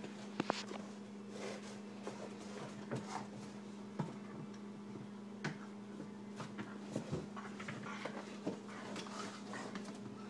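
German Shepherd puppy playing with a Jolly Ball, a hard plastic dog ball: scattered, irregular knocks, taps and scuffles of the play, over a steady low hum.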